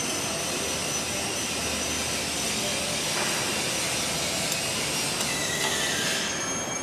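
Steady mechanical noise with a hiss, as of running machinery, with a high squeal about five seconds in.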